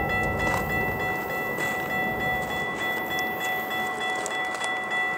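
Railroad grade-crossing warning bell ringing steadily as the crossing signals flash, over the low rumble of an approaching diesel freight train.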